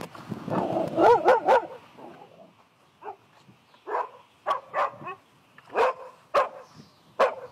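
A dog barking: a loud run of quick yelps about a second in, then single barks every half second or so.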